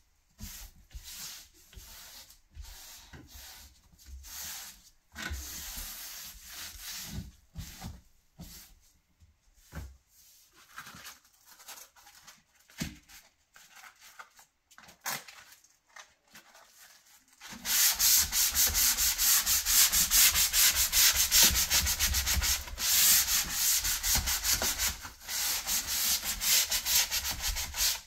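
Hand sanding of a painted wooden frame with a sanding block: scattered, quieter rubbing strokes at first, then, a little past halfway, fast, steady back-and-forth strokes that are much louder.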